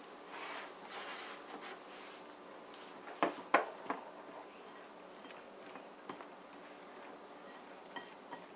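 A hand mixing dry flour in a ceramic bowl: faint soft rubbing and rustling, with a few sharp taps a little over three seconds in.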